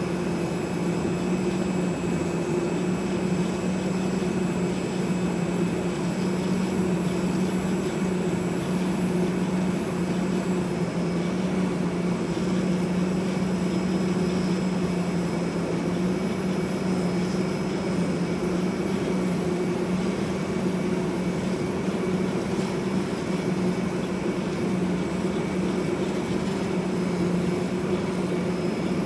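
Vibrating-knife cutting machine running as its head cuts printed sheet stock: a steady low hum with a faint high whine above it.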